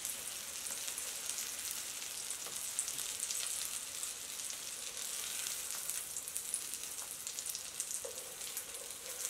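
Oil sizzling and crackling steadily around egg-batter capsicum ring cutlets in a shallow nonstick frying pan, still bubbling on residual heat with the gas just turned off. A slotted spatula lifts the cutlets out of the pan.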